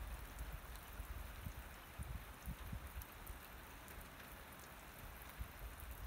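Steady rain falling, with many separate drops ticking over an even hiss and an uneven low rumble underneath.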